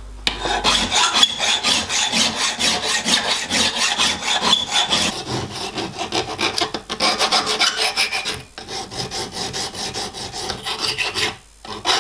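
Hand file rasping on a 2 mm mild steel plate held in a bench vise, in fast, regular back-and-forth strokes with a few short breaks in the second half.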